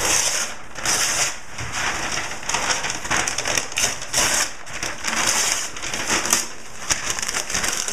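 Newspaper being crumpled and stuffed into a shipping box as packing: a run of irregular crackling rustles, about one a second.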